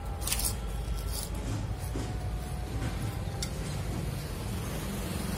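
A crisp fried cracker being bitten and chewed: a few sharp crunches in the first second and a half, and a fainter one about three and a half seconds in, over a steady low rumble.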